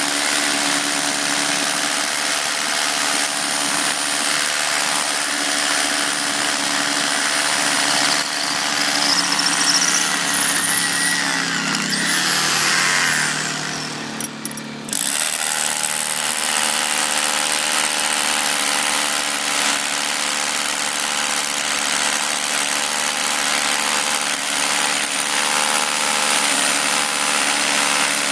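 Corded Makita drill boring into concrete through a rubber speed hump's fixing holes, running steadily at full speed. About halfway through it winds down and stops for a moment, then starts again and keeps drilling.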